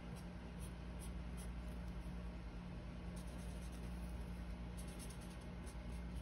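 Felt-tip marker drawing small dots and short strokes on paper: faint, irregular scratches and taps over a steady low hum.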